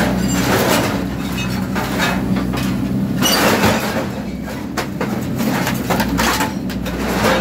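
Excavator's diesel engine and hydraulics running steadily under load while its hydraulic demolition shear bites into and drags through a pile of scrap metal roo bars (bull bars). Several bouts of metal crunching and scraping rise over the engine hum.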